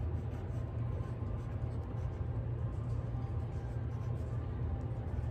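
Pencil scratching on a paper card while drawing, over a steady low hum.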